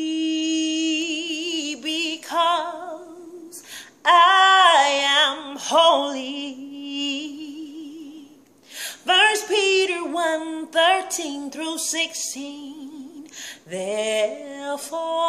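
A woman singing solo, unaccompanied, in long held notes with vibrato, breaking off briefly twice.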